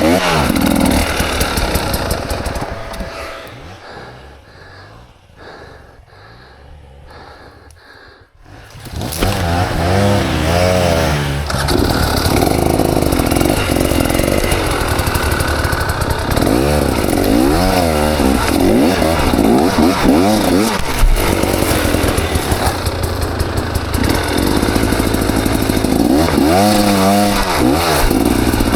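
KTM 300 XC two-stroke dirt bike engine revving up and down in repeated rising and falling bursts. It drops to a much quieter sound for several seconds about three seconds in, then comes back loud about eight seconds in.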